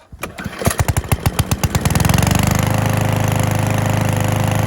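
Gas lawn mower engine pull-started without priming: it fires and catches at once, its strokes quickening, and settles by about two seconds in into a steady, even run.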